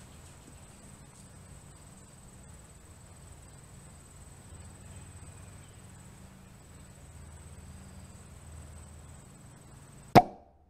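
Steady outdoor insect chorus, a constant high thin tone over a low steady hum. About ten seconds in comes a single loud, sharp hit, and then the sound cuts off abruptly.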